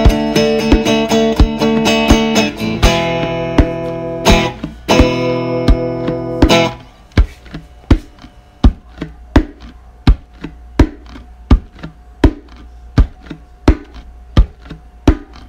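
Electric guitar strumming chords over a steady percussive beat; about seven seconds in the guitar stops, leaving only the beat, a sharp tap roughly every 0.7 seconds.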